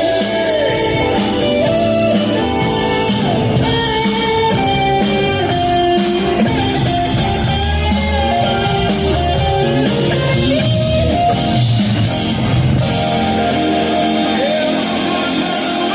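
A live rock band playing loudly, with guitar and drum kit and a melodic lead line over them.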